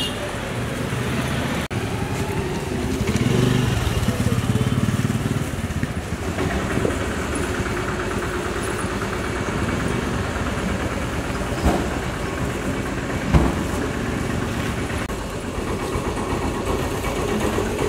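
Street traffic with a motor vehicle's engine running close by, and two short knocks about a second and a half apart past the middle.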